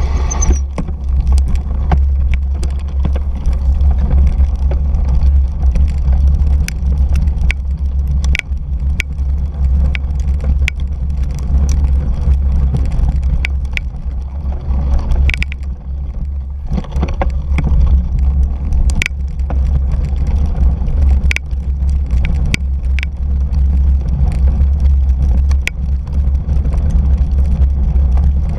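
2017 Fuji Jari 1.5 gravel bike ridden over a rough dirt trail, heard through a camera mounted on the bike: a heavy, steady rumble of tyres and frame vibration, with frequent sharp clicks and rattles from the bike as it goes over bumps.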